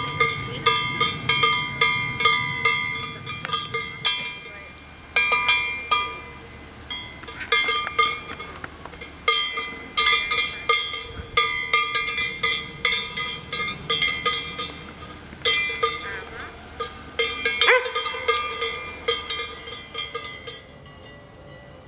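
Several cowbells clanking irregularly, a few strikes a second, each ringing on briefly at its own pitch; the clanking thins out near the end.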